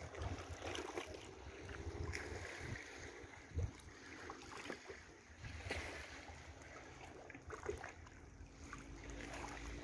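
Small waves lapping at the shoreline and against boathouse pilings, with a few light splashes, while wind buffets the microphone in gusts near the end.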